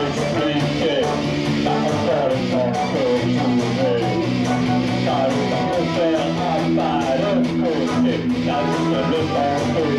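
Rock song instrumental break: an electric guitar plays a lead line of bent, sliding notes over steady held backing chords.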